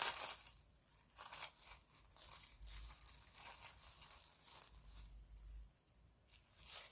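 Plastic slime container being handled close to the microphone: faint, irregular crinkly rustling and crackling, with no steady rhythm.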